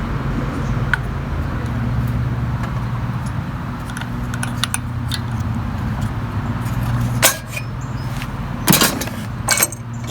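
A few sharp metallic clicks and clinks as the removed recoil starter assembly is handled, over a steady low hum.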